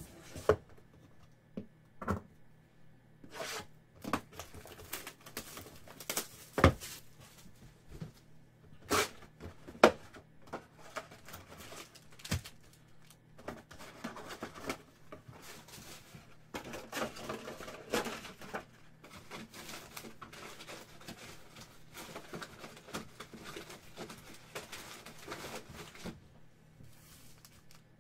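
A cardboard box of foil-wrapped football card packs being opened and unloaded: scattered sharp taps and knocks of cardboard on the table, then, from about halfway, a long stretch of foil pack wrappers crinkling as the packs are handled.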